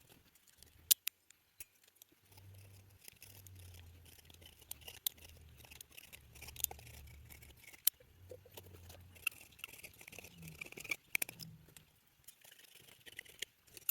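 Faint scraping and rasping of a sheared sleeve anchor being worked in its hole in limestone, with scattered light metal clicks and taps as it is worked loose.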